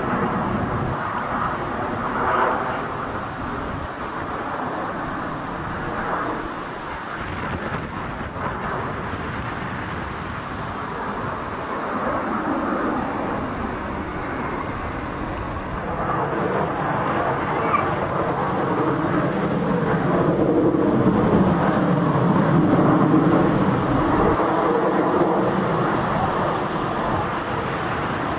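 Aircraft engine noise, continuous, swelling in the second half and loudest about three quarters of the way through before easing slightly.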